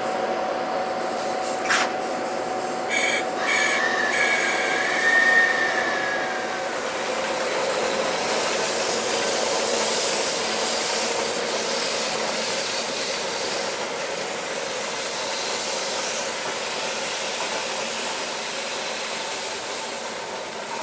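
EF63 electric locomotive, built in 1976, rolling slowly past on the track with a steady running noise. There is a sharp click about two seconds in and two more a second later, then a brief wheel squeal that slides up and down. The sound fades gradually as the locomotive moves away.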